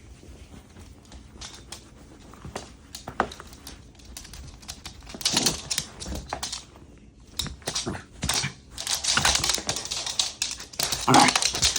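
A Shiba Inu's claws clicking and scrabbling on a hard floor as the dog runs wild, in irregular flurries of rapid clicks that grow louder from about five seconds in.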